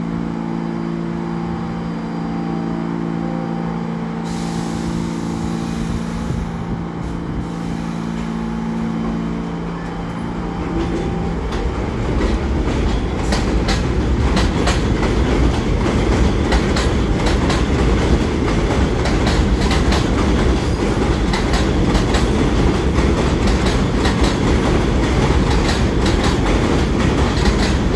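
R46 subway train leaving the station: a steady hum of several pitches at first, then, a little before halfway, a louder rumble with rapid clickety-clack of wheels over the rail joints as the train moves off.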